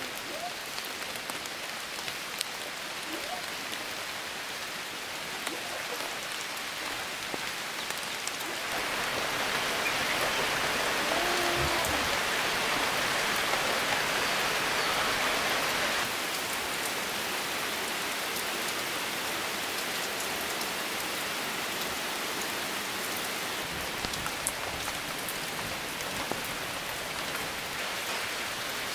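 Steady rain falling, heavier for about seven seconds in the middle.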